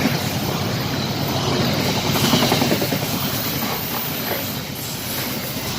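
Passenger train coaches rolling past, wheels clattering steadily on the rails.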